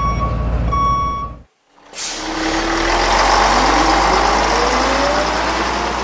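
Truck sound effects. A reversing alarm beeps twice over a low engine rumble and cuts off about one and a half seconds in. After a brief silence, a truck engine runs up with a rising pitch.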